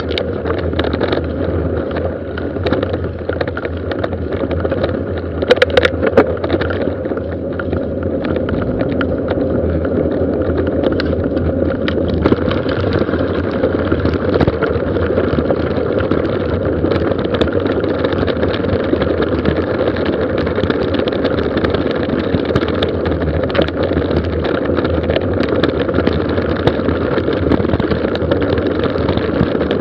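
Mountain bike descending a gravel forest road at speed: a steady rush of wind on the microphone and tyres on gravel, with constant small rattles and a louder jolt about six seconds in.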